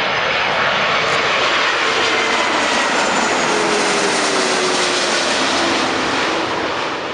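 Airbus A330-200 twin turbofan jet airliner passing low overhead on landing approach: loud, steady rushing jet noise with a faint whine that drops in pitch as it goes by, easing off near the end.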